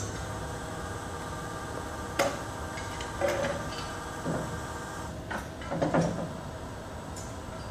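Electric hydraulic system of a CAT NR4000 reach truck running the pantograph reach in: a steady motor hum with several metallic clunks from the reach mechanism between about two and six seconds in.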